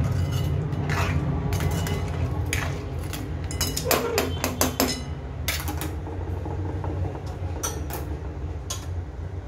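Metal ladle clinking and scraping against a stainless steel kadhai while stirring a thin crab curry, in irregular strikes with a quick cluster of clinks about four seconds in. A steady low hum runs underneath.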